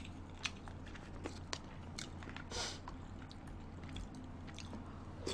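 Quiet eating: scattered small clicks of chopsticks and a spoon against the food containers, with faint chewing, over a low steady hum.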